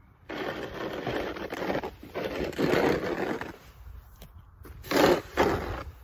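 Plastic snow shovel scraping along pavement as it pushes snow, in several rough strokes: a long one in the first two seconds, a louder one around the middle, and two short ones near the end.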